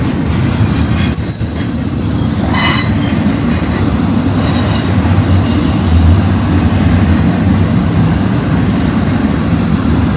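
Double-stack intermodal freight train passing close by, its well cars' wheels making a steady low rumble on the rails. A brief high wheel squeal comes about a second in, and another short squeal comes at about two and a half seconds.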